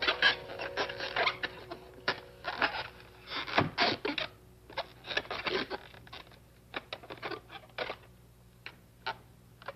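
Long rubber modelling balloon squeaking and rubbing as it is twisted and bent into a balloon animal, in irregular short squeaks with gaps between them.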